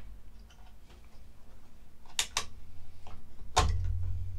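Light clicks and taps of hands handling an inverter's circuit boards and plug-in cables: two sharp clicks a little past two seconds in, then a louder knock with a low thud under it near the end.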